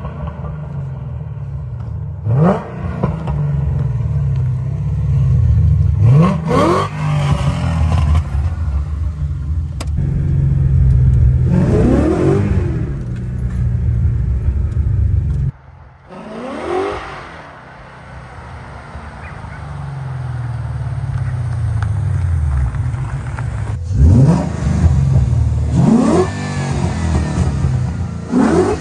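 Ford Gen 1 Coyote 5.0 V8 in a 1989 Fox-body Mustang, running through long-tube headers and accelerating hard, revving up again and again in about seven rising sweeps over a deep rumble. It cuts off abruptly about halfway through and builds again.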